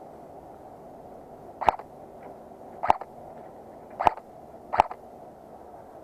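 Airsoft gun fired on semi-auto: four sharp shots, the first three about a second apart and the last following quickly, each with a faint second click just after, over a steady hiss.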